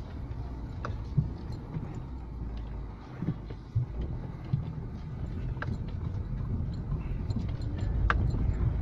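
Suzuki Grand Vitara driving along a dirt forest track, heard from inside the cabin: a steady low engine and road rumble with a few light knocks and rattles.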